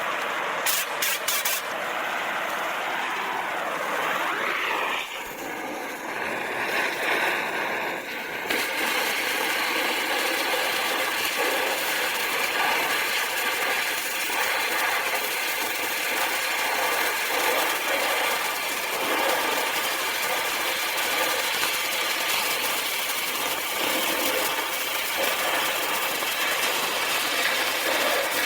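Acetylene torch: a few sharp clicks about a second in, then the gas flame hissing steadily, turning fuller and louder about eight and a half seconds in and holding there.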